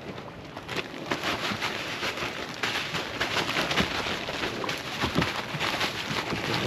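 A bag holding a fish fillet and its coating being shaken, with a dense, irregular crinkling rustle that starts under a second in.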